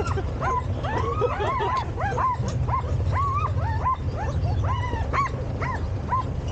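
A team of sled dogs yipping and whining, many short rising-and-falling calls several per second, over a steady low rumble.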